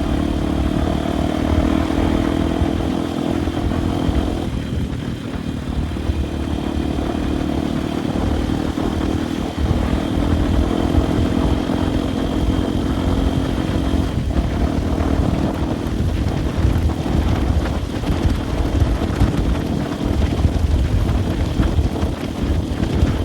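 Enduro motorcycle engine running while riding, its pitch shifting a few times as the throttle is worked, with wind and rumble on the microphone.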